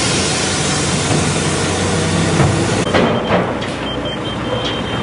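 Diesel engine of a compact loader running steadily under load while it carries a bucket of gravel, with a low engine hum under a loud hiss. A couple of knocks about three seconds in, and a faint, broken high beep in the second half.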